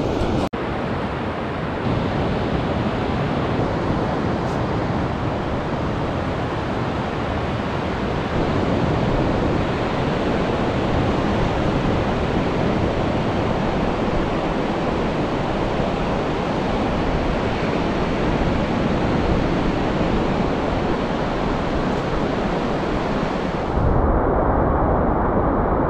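Surf washing onto a beach mixed with wind rumbling on the microphone: a steady rushing noise. Near the end the hiss thins and the low wind rumble grows.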